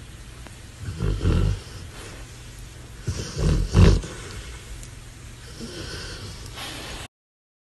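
An animal's low, rough vocal sounds in short bursts, once about a second in and again, louder, around three to four seconds in. The sound cuts off suddenly near the end.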